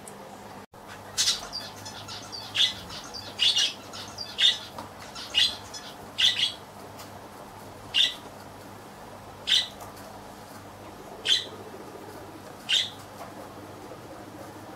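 A bird giving short, sharp calls, about ten of them, roughly one a second at first and then further apart, over a steady low hum.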